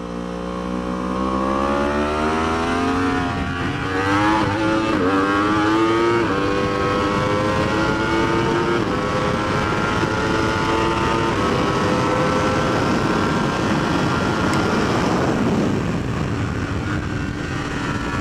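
2019 Yamaha R1's crossplane inline-four accelerating hard on track, its note climbing in pitch with several quick upshifts around four to six seconds in, then holding high. About fifteen seconds in the engine note fades, leaving wind rush.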